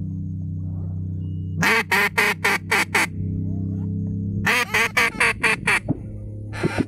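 A duck call blown in two runs of about six quick, loud quacks, the first starting about a second and a half in and the second about four and a half seconds in. A steady low hum runs underneath.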